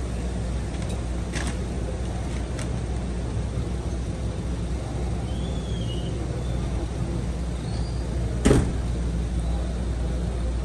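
A van's rear hatch slammed shut about eight and a half seconds in, one loud bang, over the steady low hum of the van's engine idling.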